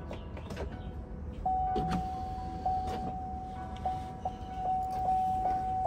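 A 2009 Chevrolet Avalanche's power steering whines steadily as the steering wheel is turned to the right. The whine starts about a second and a half in and is broken by several short clicks, over a low rumble.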